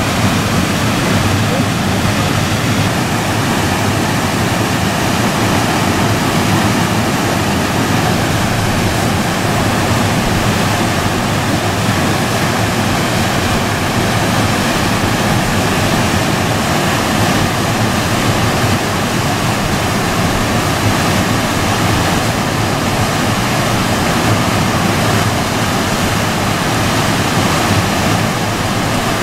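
Whitewater rapids rushing steadily: the constant churn of a river pouring through artificial rapids and standing waves, with no breaks.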